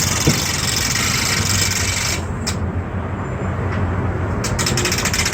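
Hand crane for lifting air-conditioner units being worked: a rasping scrape for about two seconds, then a fast run of clicks near the end, over a steady low hum.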